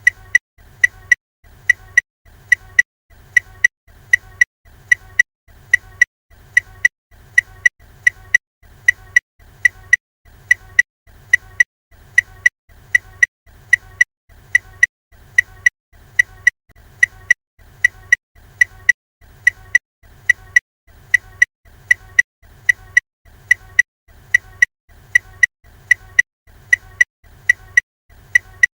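Ford Fiesta's hazard warning lights running: the indicator ticker clicking in a steady tick-tock, a pair of clicks for each flash cycle, repeating a little more than once a second. A faint low hum sits underneath.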